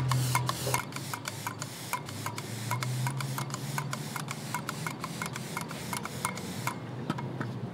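Homemade air compressor running: a steady motor hum under even, rapid clicking, about four clicks a second, which stops near the end.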